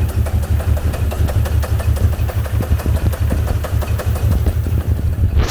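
2003 5.7-litre Hemi V8 idling with a steady, pulsing exhaust beat. It runs rough and rich without setting a misfire or any trouble codes.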